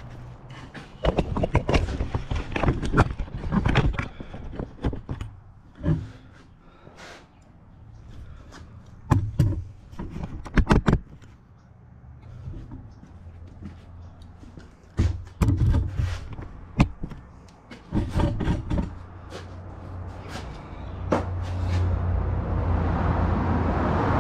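Scattered knocks, clicks and clatters of a phone camera being handled, with a low hum beneath that grows steadier near the end.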